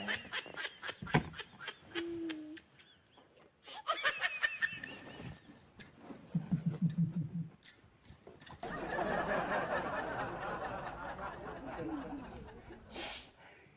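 A person laughing in short snickering bursts. About six seconds in comes a low pulsing snort, followed by a long, raspy breathy stretch.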